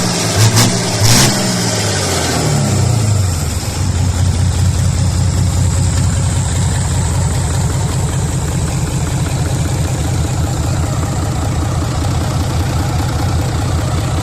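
Hino W06E inline-six diesel engine, naturally aspirated, with its revs dropping over the first few seconds and a few sharp clacks near the start. It then settles into a steady idle with an even, rhythmic pulse.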